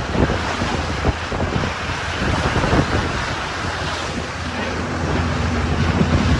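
Wind buffeting the microphone over the rush of sea water, with a steady low motor hum underneath; a faint higher steady tone joins the hum near the end.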